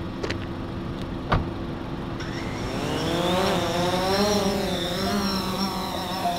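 A DJI Phantom 4 Pro quadcopter's motors run at a low hum, with two sharp clicks. About two seconds in, the propellers speed up in a rising whine, then hold a steady, slightly wavering pitch as the drone powers up to fly.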